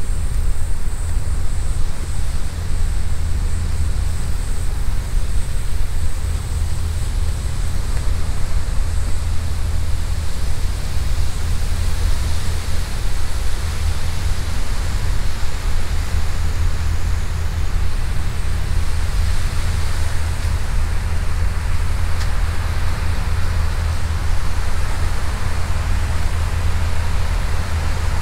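Steady rumbling noise, heaviest at the low end, unbroken throughout, with no speech or music.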